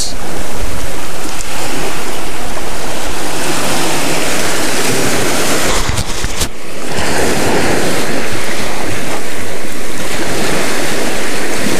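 Waves washing onto the shore, with wind buffeting the microphone in a loud, steady rush. About six seconds in the noise briefly drops, with a few knocks.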